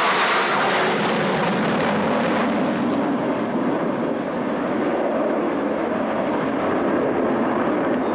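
Steady jet roar from a pair of Su-27 fighters flying in close formation. The high hiss thins after about two and a half seconds as they draw away.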